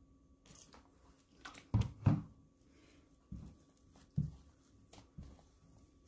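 Hands playing with slime: a run of soft, irregular squishes and pops as it is pressed and stretched, loudest about two seconds in.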